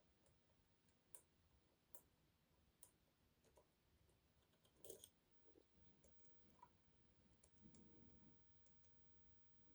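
Faint, scattered clicks of lock picking tools working inside an Adamant lock, a few isolated ticks about a second apart with the sharpest one about five seconds in.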